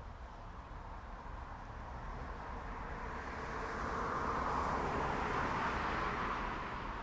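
A car driving past on a road: a noise that swells over a few seconds, is loudest about five seconds in, then fades.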